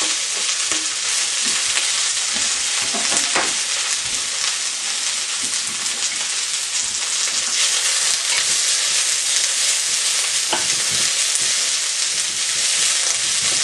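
Chopped onion, wild garlic and rosemary sizzling steadily in hot olive oil in a frying pan, with a couple of faint knocks. A wooden spoon stirs the pan near the end.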